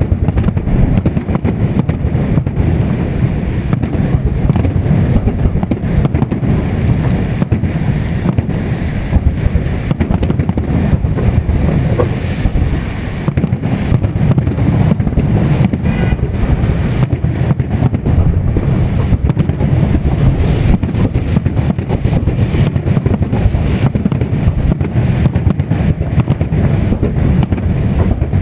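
Fireworks salute going off in a dense, unbroken run of bangs and pops, heavily buffeted by wind on the microphone.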